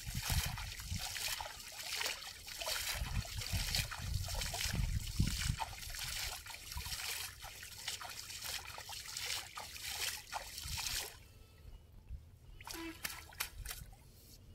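Water splashing and trickling, busy for about eleven seconds and then falling away, with a few short clicks near the end.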